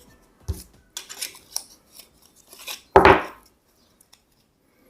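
Hard plastic parts being handled and fitted together: a few short scrapes and clicks, with one louder clatter about three seconds in.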